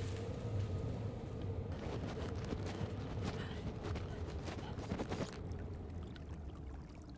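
Rustling and crunching of footsteps through dry fallen leaves over a low steady hum. The crackle thickens from about two seconds in and dies away after about five seconds.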